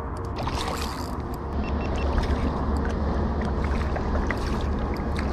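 Steady low rumble of wind on the microphone, with water noise around a small kayak.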